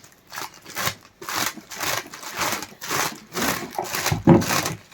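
Packaging rustling and being handled in a run of short noisy bursts, with a louder thump about four seconds in.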